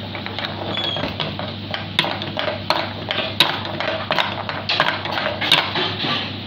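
Metal spatula clanking and scraping against a metal wok as chicken chilli dry is stir-fried, with repeated sharp knocks over a steady low hum.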